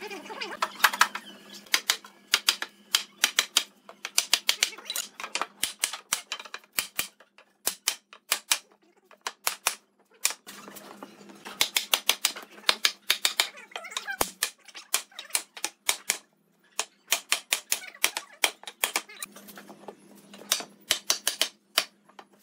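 Quick runs of sharp, light taps and clicks, several a second, broken by short pauses, over a faint low hum that comes and goes.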